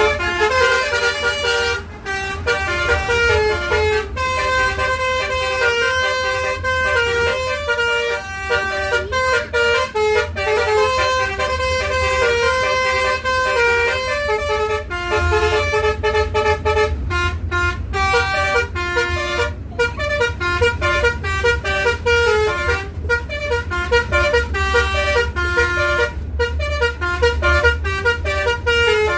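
Bus telolet horn (a 'basuri' multi-tone air horn) playing a dance tune in quick stepped notes with short breaks between phrases, over a steady low rumble.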